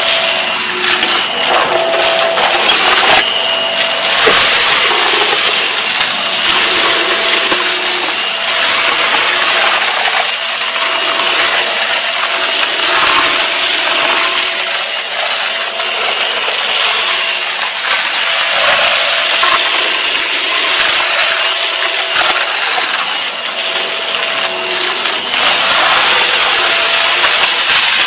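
Hart stick vacuum running with a steady motor whine while sucking up a pile of multicoloured confetti-like debris from carpet, the pieces crunching and crackling in constant quick clicks as they rattle up into the dust bin.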